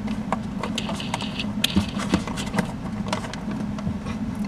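Screwdriver driving screws back into a 3D printer's metal cover panel: a string of irregular small clicks, taps and scrapes of the driver and screws, with a brief scraping hiss about a second in, over a steady low hum.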